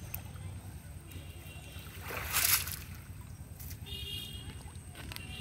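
Water splashing and streaming off a cast net as it is hauled out of a pond onto stone steps, with one louder splash about two and a half seconds in.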